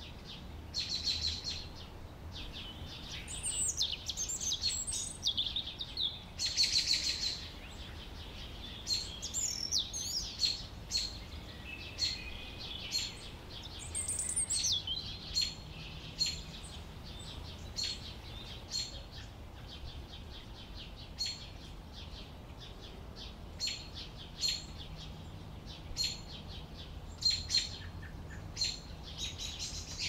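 Domestic canaries chirping and singing: short repeated chirps throughout, with bursts of warbling song phrases in the first half.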